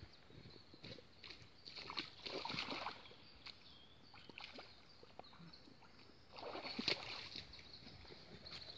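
Faint splashing and sloshing of water in two bouts a few seconds apart: a carp being released back into the water.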